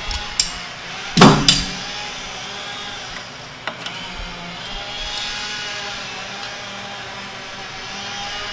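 Light metal clicks and a sharper clink about a second in as a motorcycle clutch lever and cable end are fitted by hand at the handlebar, over background guitar music.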